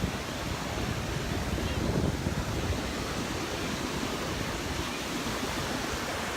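Gulf surf washing onto the beach, a steady wash of noise that swells about two seconds in, with wind buffeting the microphone.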